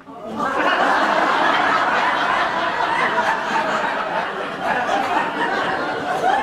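Theatre audience laughing, many people at once, swelling up in the first half second and holding steady.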